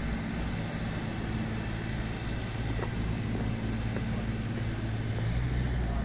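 Steady city outdoor background noise with a continuous low droning hum, without speech.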